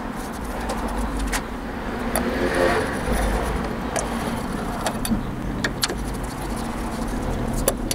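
Small sharp metal clicks, about five spread out, from a screwdriver and loosened screws on a motorcycle carburettor's diaphragm cover, over a steady low hum.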